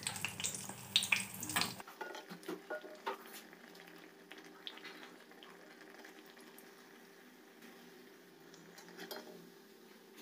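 Tomato malpua deep-frying in hot oil in a kadai: a faint, steady sizzle with light clinks of a slotted steel skimmer against the pan. The sizzle grows fainter about two seconds in.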